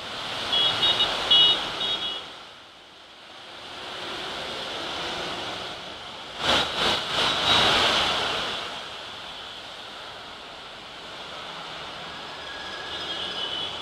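Heavy rain pouring down on a city street with traffic passing, a steady hiss. Short high-pitched beeps sound about a second in and again near the end. A few sudden louder bursts of noise come about six and a half seconds in.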